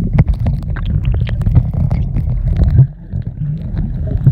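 Pool water heard through a submerged phone microphone: a loud, muffled low rumble of water moving around the phone, with many small clicks and crackles through it. The rumble drops away briefly just before three seconds in, then returns.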